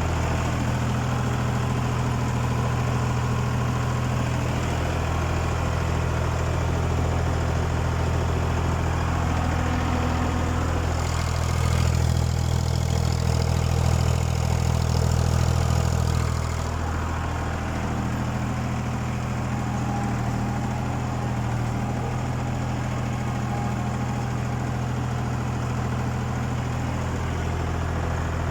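Ford 4000 tractor engine running steadily, with a steady low drone; it gets a little louder, with extra hiss, for about five seconds midway.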